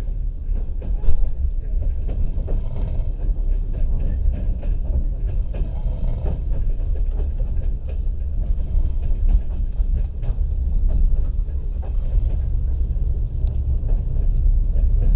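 Passenger railway carriage running along the track, heard from inside: a steady low rumble of the wheels and running gear with scattered light clicks and one sharper knock about a second in.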